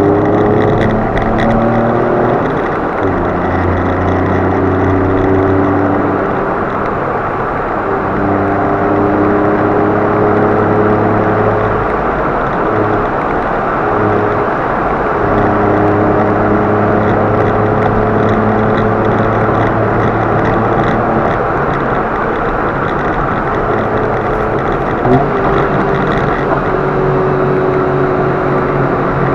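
Car driving at speed with steady tyre and road noise under the engine note, which changes pitch several times. There is one short bump about 25 seconds in.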